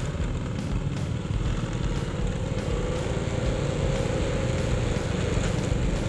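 Motorcycle engine running as it rides along a dirt trail, with a steady low rumble. A faint engine tone grows clearer about halfway through.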